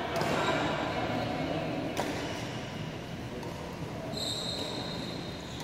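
Badminton hall: two sharp racket hits on a shuttlecock, about two seconds apart, over the hall's steady background noise. About four seconds in, a steady high-pitched tone begins and holds for about a second and a half.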